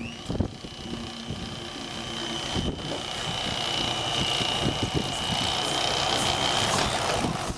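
Electric fillet knife running with a steady high-pitched whine and buzz as its reciprocating blade saws through a black grouper fillet. It grows louder over the first few seconds and shuts off about seven seconds in.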